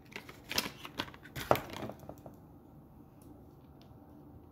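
Handling noise of a small cardboard box on a tabletop: several knocks and rustles in the first two seconds as it is put down, the loudest about one and a half seconds in, then only faint ticks.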